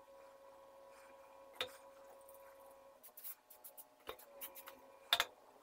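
Short spray bursts from an aerosol can of WD-40 onto a rusty steel chisel blade, starting about halfway through and mixed with light knocks of chisel and can against a wooden board, the loudest near the end. Before that there is a single click, over a faint steady hum that fades about halfway.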